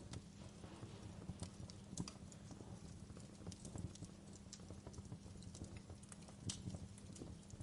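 Wood fire crackling in a fireplace: irregular sharp snaps and pops, a couple of them louder, over a low steady rumble of the flames.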